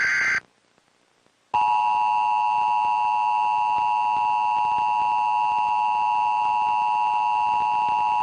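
Emergency Alert System broadcast: the last of the buzzy data-header bursts cuts off, and after about a second of silence the steady two-tone EAS attention signal starts and holds.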